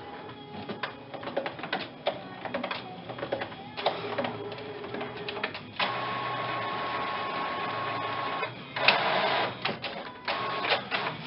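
Printer running a print job: a string of mechanical clicks and short whirs, then a steady motor whir with a held tone for nearly three seconds from about six seconds in, followed by a louder burst of whirring.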